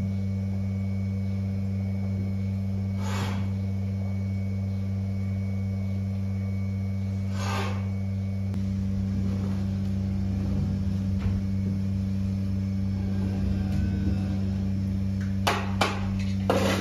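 Steady low electrical hum in a cow barn, with two short puffs of breath from cows close by. Near the end come a few scraping strokes of a manure scraper on concrete.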